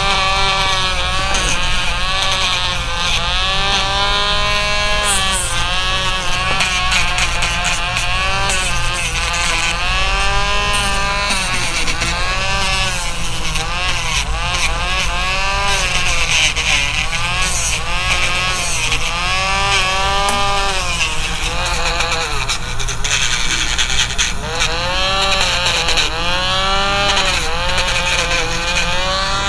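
Cordless rotary nail grinder with a sanding drum running and grinding down a dog's toenails. Its whine dips and recovers about every second or so as the drum is pressed against a nail and lifted off.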